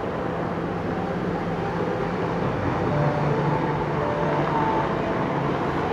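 Steady low engine drone and rumble, with faint tones that drift in pitch, growing a little louder about three seconds in.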